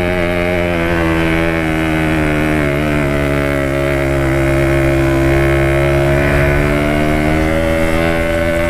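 Yamaha RX-King's single-cylinder two-stroke engine running steadily as the motorcycle is ridden, its pitch dipping slightly about three seconds in and then easing back up.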